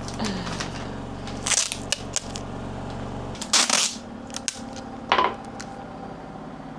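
Clear sticky tape being pulled off the roll and torn in a few short rasping strips, with small clicks and paper handling as it is pressed onto envelopes.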